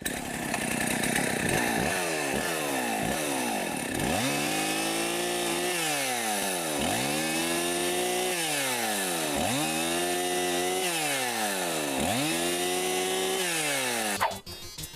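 Chainsaw running and cutting, its engine pitch sinking and climbing back over and over, a little more than once a second, as it bogs in the cut; it stops shortly before the end.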